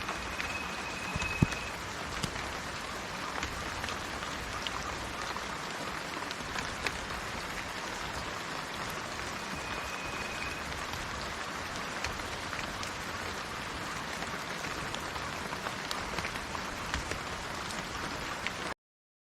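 Steady rain falling on leaves, with scattered drop ticks and a sharp tap about a second and a half in. A bird gives a brief high whistled note twice, near the start and about ten seconds in. The rain cuts off suddenly just before the end.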